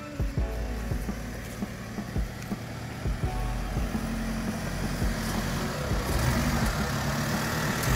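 Toyota Fortuner SUV engine running at low revs as it drives toward the camera on a rough dirt trail, growing louder as it nears, with a few short knocks in the first seconds.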